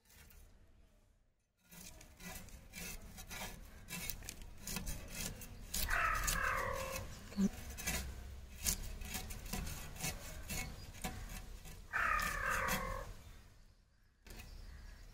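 Rapid, irregular scraping and rubbing as a mackerel is cleaned by hand. Two short falling calls stand out, about six seconds apart.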